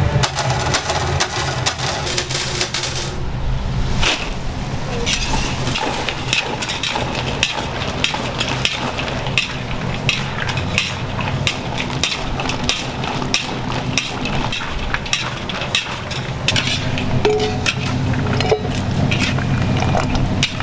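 Shop kitchen work on fried chicken: a steady hiss like frying oil, with frequent sharp clicks and knocks of metal utensils and pans.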